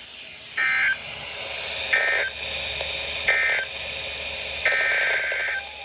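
Emergency Alert System data bursts, a warbling two-tone digital screech, heard over radio hiss. Three short identical bursts about a second and a half apart, the end-of-message code, are followed about 4.7 s in by a longer burst, the start of the next alert's header.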